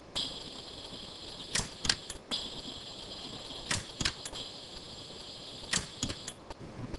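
Orion pulsed-arc micro TIG dental welder firing, sharp snapping clicks in groups of two to four about every two seconds as gold wire is fused onto a palladium implant bar. A faint high-pitched hum runs between the pulses.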